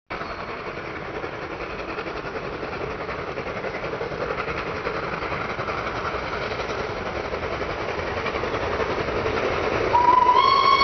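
Two steam locomotives, an LNER K1 and a BR Standard 2, double-heading a train up a gradient: a mixed exhaust beat from both engines working on the climb, growing steadily louder as they approach. About ten seconds in a steam whistle begins to sound.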